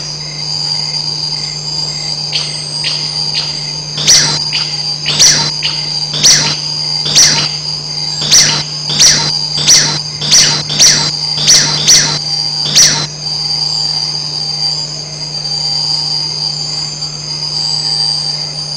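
Tarsier calling: a run of sharp, shrill whistles, each falling steeply in pitch, coming faster and faster from about two seconds in until about thirteen seconds in. Under the calls is a steady high drone and a low hum.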